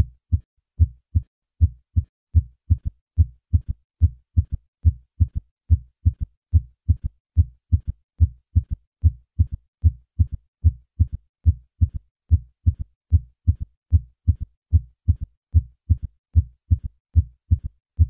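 Heart sounds heard through a stethoscope: a steady, regular run of short, low thuds, with a third heart sound (S3) falling in early diastole just after the second sound and giving a gallop rhythm. In patients over 40 this sound usually indicates decreased left ventricular function.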